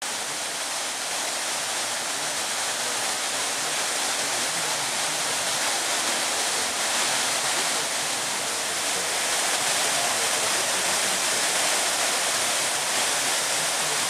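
Water pouring in sheets over the rims of a tiered fountain and splashing into its basin: a steady rush of falling water.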